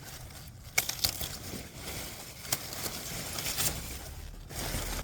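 Rustling, crackling handling noise with several sharp clicks or snaps.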